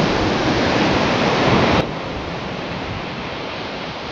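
AI-generated stormy ocean waves from a text prompt: a dense, loud rushing of surf and wind that drops to a lower level about two seconds in.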